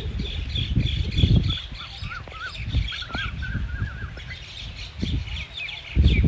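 Wind gusting through trees and buffeting the microphone with low rumbles, strongest for the first second and a half and again near the end, while small birds chirp and twitter throughout. From about a second and a half in, a bird adds a string of short rising-and-falling whistled notes.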